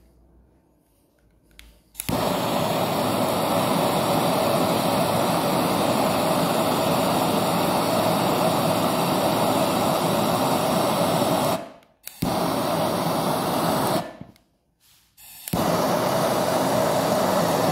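Hotery HZ-8389 MAPP-type hand torch burning LPG: a steady, loud hiss of the flame as it heats an aluminium tube joint for brazing. It starts suddenly about two seconds in, and drops out briefly about twelve seconds in and again for a second or so near the end.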